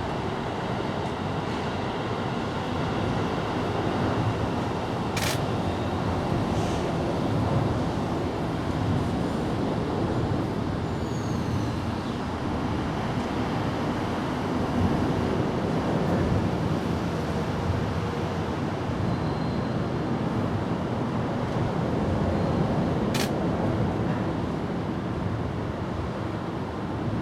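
Steady low outdoor rumble of background noise, with two sharp clicks, one about five seconds in and one near the end, and a few faint high chirps about eleven seconds in.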